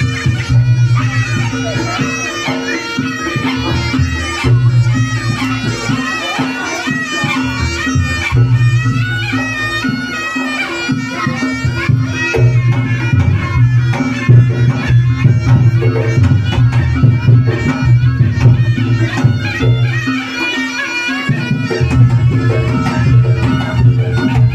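Live Reog Ponorogo music: a slompret, a shrill double-reed shawm, plays a wavering, ornamented melody over a steady low drone and percussion accompaniment.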